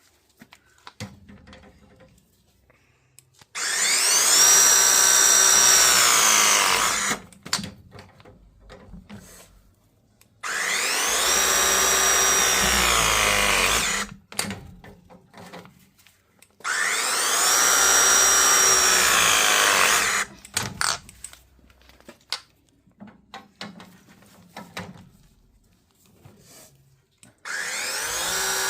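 Battery-powered ProPress pressing tool crimping press fittings onto pipe: three motor runs of about three and a half seconds each, with a steady whine that drops in pitch as each press finishes, and a fourth run starting near the end. Light clicks and handling noises come between the presses.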